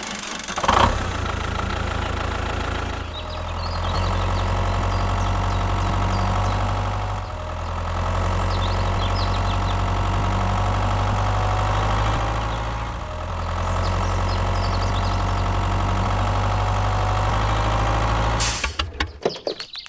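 Engine idling with a steady low rumble, easing off briefly three times, then cutting off suddenly near the end.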